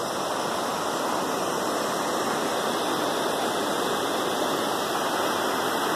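Floodwater pouring over a dam's overflow spillway and rushing down the concrete channel: a steady, even rush of water from a lake overflowing after heavy rain.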